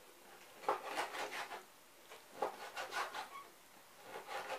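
Kitchen knife slicing raw pork on a wooden cutting board, the blade cutting through the meat and knocking and scraping on the wood in three short bouts of strokes.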